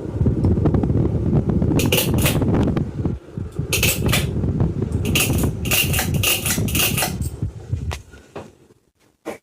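Hampton Bay Trice ceiling fan running, a loud rough rumble of moving air on the microphone, with clusters of sharp clicks and rattles now and then. It fades out about eight seconds in.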